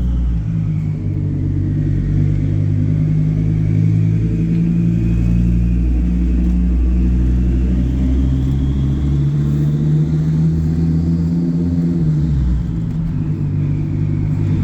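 Turbocharged Volvo C70 with a 3-inch straight-pipe exhaust running, a loud deep exhaust drone with a faint high turbo whistle that rises slowly in pitch over several seconds and then falls away.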